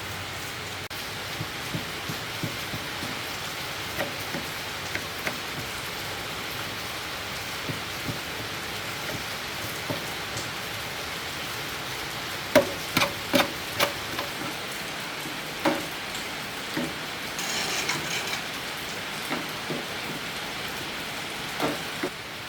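Steady rain falling, with scattered sharp clicks and taps over it, including a quick run of four loud ones a little past halfway and a brief rasping noise soon after.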